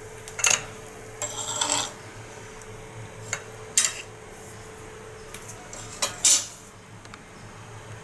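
Steel spatula scraping and clinking against an iron dosa griddle and a plate as pieces of fried bread are lifted off and set down: a scrape about a second and a half in and several short sharp clinks.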